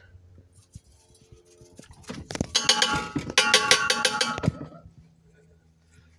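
Metal salt shaker shaken hard over an air fryer basket, rattling and clanging with a metallic ringing in two bouts of about a second each, the salt not coming out freely.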